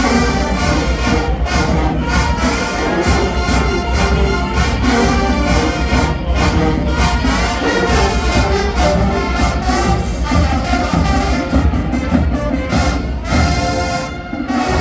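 College marching band playing: full brass with trumpets and trombones over heavy low brass and drums, a dense, loud, continuous sound that dips briefly near the end.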